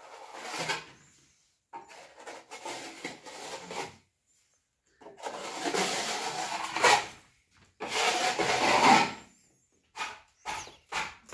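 Steel plastering trowel scraping and smoothing wet plaster across a wall, in several long sweeping strokes and then a run of quicker, shorter strokes near the end.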